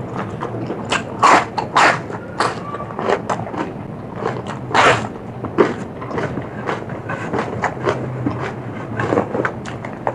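Close-up eating sounds: irregular crunches, clicks and smacks of someone biting and chewing food, with a steady low hum underneath.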